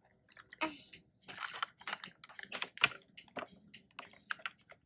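Irregular small clicks and rustles of a plastic toy capsule and its packaging being handled.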